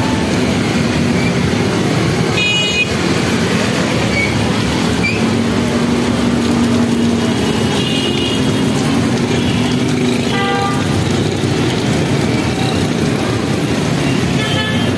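Dense, slow street traffic on a flooded road: motorcycle and auto-rickshaw engines running close by in a steady din, with horns honking several times, the clearest about two and a half seconds in and again around ten seconds.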